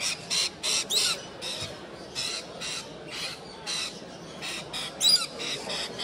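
Parrots squawking: a run of short, harsh calls, about two a second, with a couple of sharp rising calls about one second in and near the end.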